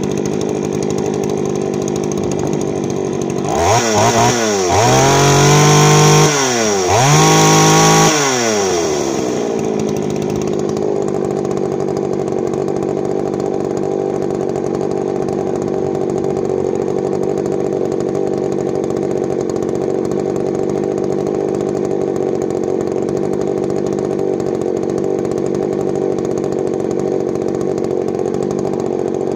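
Poulan 3400 Countervibe two-stroke chainsaw idling steadily. About four seconds in it is revved up twice in quick succession, each rev rising and then falling back, before it settles to idle again.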